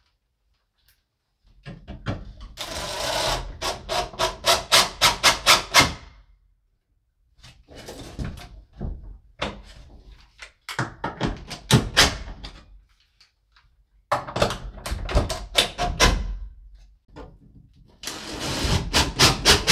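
Cordless driver running screws to fasten a metal breaker panel enclosure to the wall studs, in five bursts of a few seconds each. Each burst is a run of evenly spaced clacks, about four a second.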